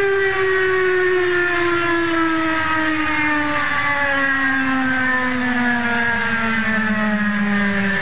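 Recording of the variable-pitch steam whistle of the tug Sea Lion, the whistle that could play tunes: one long tone with many overtones, sliding steadily down in pitch by more than an octave over a hiss.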